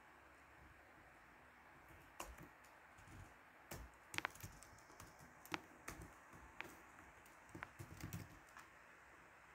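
Faint computer keyboard keystrokes in scattered, uneven clicks, starting about two seconds in and stopping near the end, over a low steady hiss.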